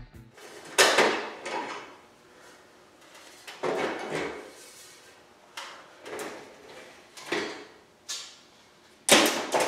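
Clunks, rattles and scrapes of a fluorescent light fixture's cover being worked loose and pulled down from the fixture body, about six separate knocks with the loudest about a second in and near the end.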